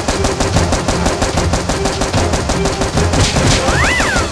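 Automatic-gunfire sound effect dubbed over toy-blaster action: a fast, unbroken stream of shots, about eight to ten a second, over background music. Near the end comes a short high cry that rises and falls.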